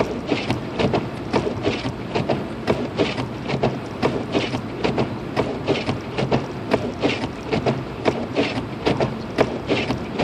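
Windshield wipers chattering and clacking across a snow-covered windshield, a fast irregular clatter of about three to four knocks a second over the car's steady low engine and road hum inside the cabin. The wiper blades are worn.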